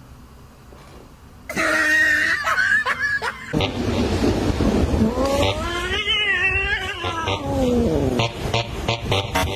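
An animal's calls: a short pitched cry, then a longer wavering call that rises and falls, over a noisy background.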